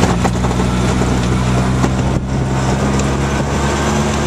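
Auto-rickshaw engine running steadily as the vehicle drives along, a constant engine hum under an even rushing noise from the road and air.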